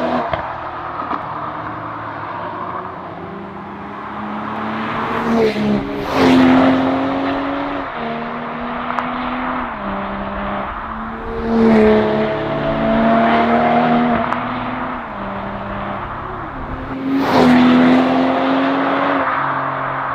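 BMW 840i Gran Coupé's turbocharged 3.0-litre inline-six running through an ARMYTRIX valvetronic sport exhaust, driven hard with the engine note stepping up and down, and three louder surges about 6, 12 and 17 seconds in.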